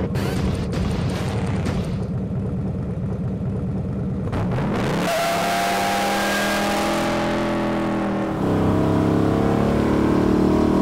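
A short stretch of intro music, then a 1966 Ford Galaxie 7-Litre's V8 revs up about halfway through and runs hard as the car accelerates away with its rear tyres spinning. It gets louder again near the end as the car passes.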